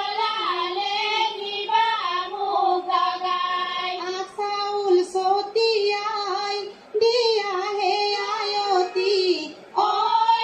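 Women singing an Assamese biya geet (wedding song), held notes in long phrases with short breaks between them, heard through a television's speaker.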